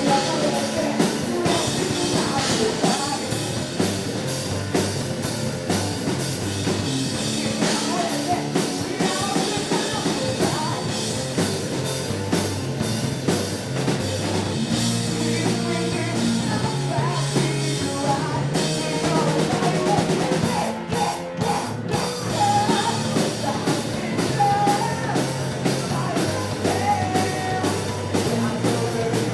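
Rock band playing live: drum kit, guitar and bass with a singer, the drums striking steadily throughout, with a short break about two-thirds of the way through.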